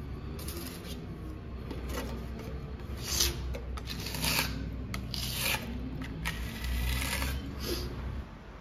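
Steel putty knife scraping filler across a plaster wall and pressing it into a hole, in a series of short scraping strokes.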